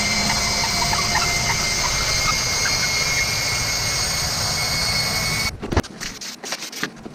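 Cordless drill running steadily with a long bit down into a stack of MDF pieces, with a few faint squeaks in the first seconds. It stops abruptly about five and a half seconds in, and a few light knocks and handling clicks follow.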